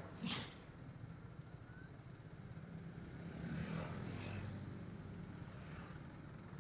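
Motorcycle engine running at low speed in slow traffic, faint, with a low hum that swells for a couple of seconds in the middle. A brief hiss comes just after the start.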